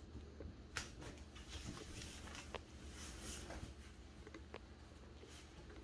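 Faint rustling and scattered light taps as cats move about inside a nylon pop-up play cube and paw on a hardwood floor.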